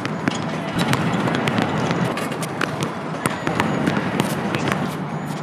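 A basketball bouncing and being shot on an outdoor asphalt court: a series of short, sharp impacts at uneven intervals, the stronger ones about once a second, over a steady low hum.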